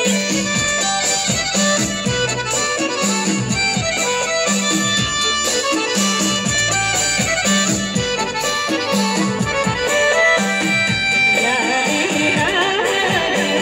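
Live Kinnauri folk music played loud through a sound system: a reedy melody over a repeating bass line and a steady drum beat. A singer's voice comes in near the end.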